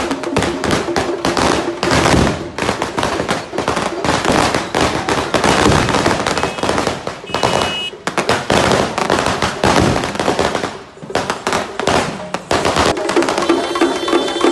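A string of firecrackers going off in rapid, irregular cracks over music, with a brief lull about eleven seconds in.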